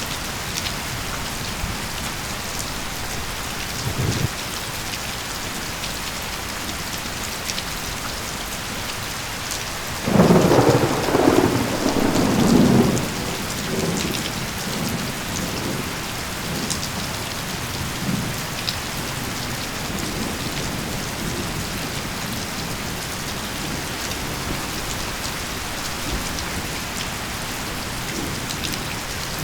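Steady rain falling. A short low thump comes about four seconds in, and a rumble of thunder starts about ten seconds in, is loudest for about three seconds, then dies away over several more.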